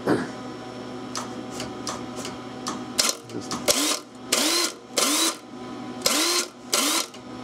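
Ryobi cordless electric impact wrench serving as a homemade power drawbar on a CNC mill spindle, run in about five short bursts, each starting with a rising motor whine, as it drives the drawbar. A few small clicks come first, over a steady machine hum.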